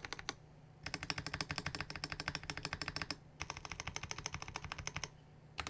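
Fast typing on a Zoom TKL mechanical keyboard with lubed KTT Kang White linear switches and Keychron white-on-black keycaps, with a marbly, full sound. The keystrokes come in quick runs with short pauses between them: a brief one at the start, two long runs, and a new one near the end.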